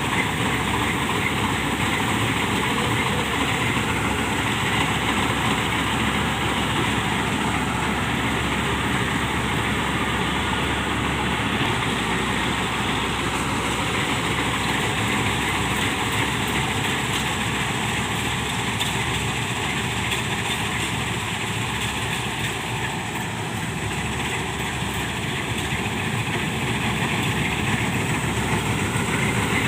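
Heavy farm diesel engine running steadily, easing a little about three quarters of the way through and rising again near the end.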